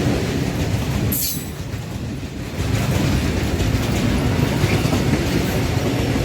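Train running past on the rails, with a continuous heavy rumble and wheels clattering over the track, and a brief high wheel squeal about a second in.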